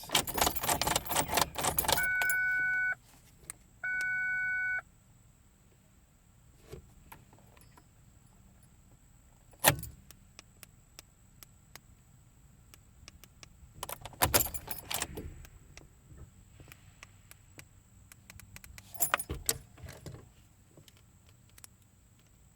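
Seat belt buckle clicking and latching in quick succession with keys jangling, then the Ford Focus's chime sounding two steady beeps, about two seconds in and again at four seconds: the beep the remote-programming procedure gives after the seat belt is buckled four times. A sharp click near ten seconds and short bursts of clicking and rattling later.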